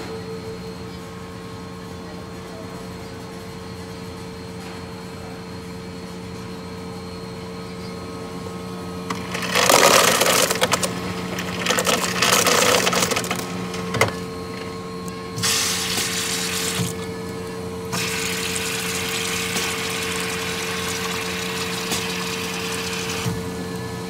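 Touchscreen Coca-Cola Freestyle fountain machine humming steadily, then dispensing into a cup of ice in several rushing spurts from about ten seconds in, the longest a steady hissing pour of cola that stops shortly before the end.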